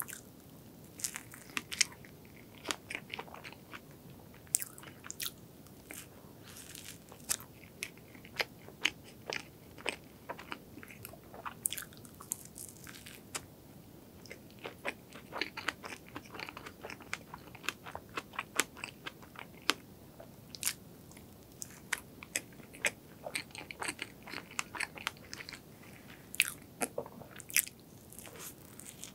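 Close-miked eating: biting into and chewing a cream-filled pastry with a golden crust. It gives a run of sharp crackles and clicks, sometimes several a second, in clusters with short lulls between them.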